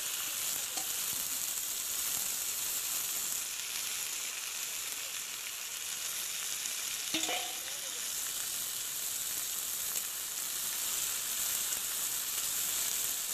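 Locusts sizzling as they fry in hot oil in a wok, a steady hiss. Near the end a spatula stirs them in the pan.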